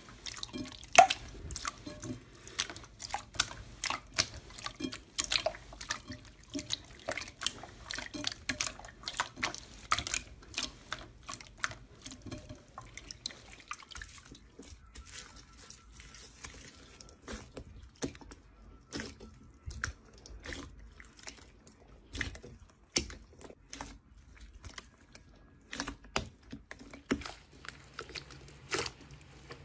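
Hands pressing and kneading slime, making a stream of short wet clicks and pops, busiest in the first half and sparser later.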